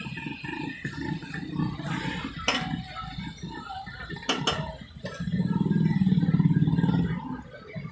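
Mutton liver and masala bubbling and sputtering in hot oil and liquid on a large flat iron tawa, with a few sharp metal clinks. The bubbling grows louder for about two seconds around five seconds in.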